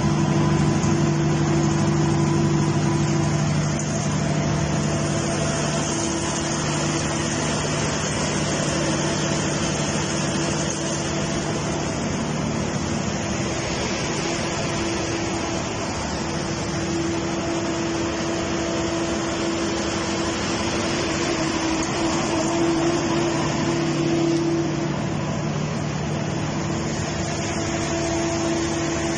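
A 100 kVA silent-canopy LPG gas generator set running steadily through its full-load test: an even engine hum with two steady low tones over a broad rushing noise, holding the same level throughout.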